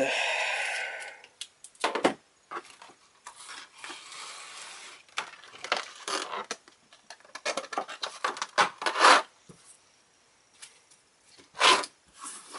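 Packaging being handled on a table: a burst of rustling at the start, then scattered crinkles, rubs and a few sharp knocks as the paper instruction sheet and box parts are moved about.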